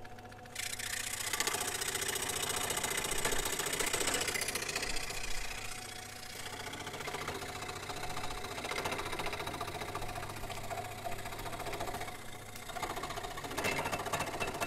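Scroll saw running, its blade cutting through wood in a rapid, buzzing chatter over a steady motor hum. The cutting noise starts abruptly about half a second in and eases briefly a couple of times.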